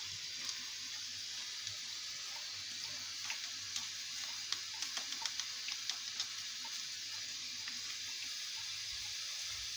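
Steady hiss with scattered light ticks and taps as a small packet is emptied over a bowl of flour.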